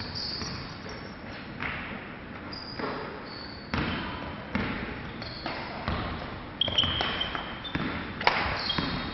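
Badminton play on a wooden sports-hall floor: sharp racket strikes on the shuttlecock and footfalls, a knock about every second, with short high-pitched shoe squeaks on the court, mostly in the second half.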